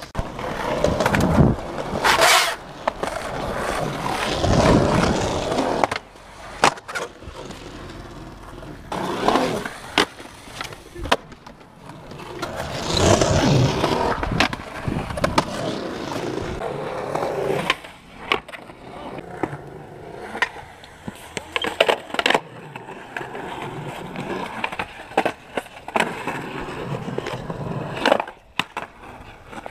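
Skateboard wheels rolling on concrete, broken by repeated sharp clacks of the board popping and landing and the scrape of the board sliding on concrete ledges.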